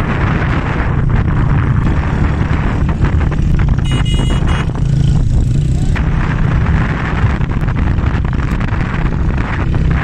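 Motorcycle engine running on the move, mixed with heavy wind rumble and buffeting on the microphone. A brief high-pitched tone sounds about four seconds in.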